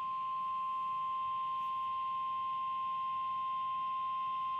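NOAA Weather Radio 1050 Hz warning alarm tone: one steady, unbroken beep, the signal that a warning message is about to be broadcast.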